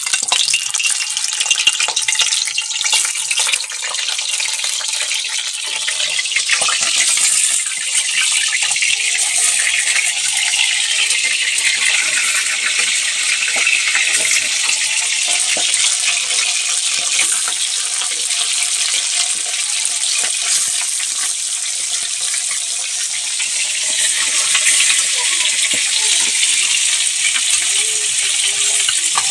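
Pieces of fish sizzling as they deep-fry in hot oil in an aluminium kadhai: a dense, steady hiss full of crackling pops as the oil spatters.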